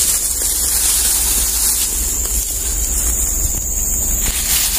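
Wind rumbling on the phone microphone over a constant high-pitched hiss of forest background noise, with no distinct event.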